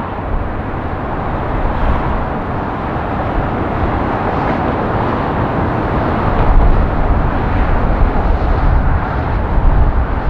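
Jet engine roar of a Delta Boeing 767-300ER on landing. It runs steadily through the flare, then grows louder and deeper with a heavy rumble after the main wheels touch down about six seconds in.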